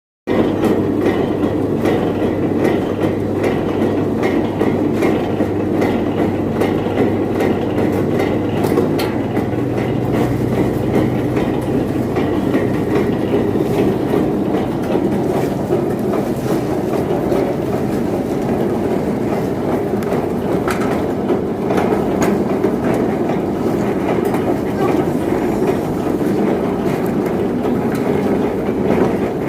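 Coconut husk-peeling machine running steadily, a continuous mechanical clatter with scattered clicks over a low hum.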